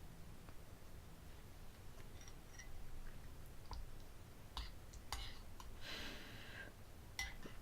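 Faint scattered clicks and light taps, with a soft breath about six seconds in.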